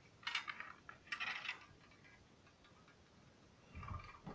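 Faint handling noise from a small hard-cased box being moved about and set down: a couple of short clicks and rustles in the first second and a half, then a soft bump near the end.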